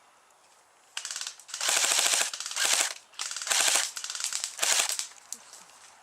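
Airsoft guns firing on full auto in several rapid bursts, starting about a second in and stopping shortly before the end.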